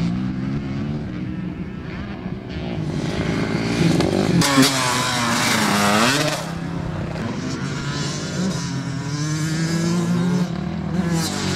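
Dirt bike engine revving hard, its pitch falling and then climbing again about four to six seconds in, over a steady engine drone.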